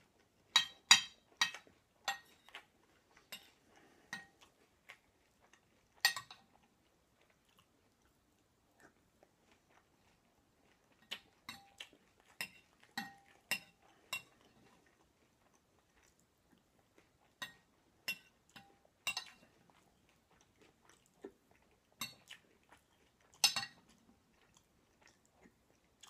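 Metal spoon clinking and scraping against a porcelain plate while eating cereal: sharp ringing taps in scattered clusters, about a second in, near six seconds, and again from about eleven seconds on. Faint chewing comes between the taps.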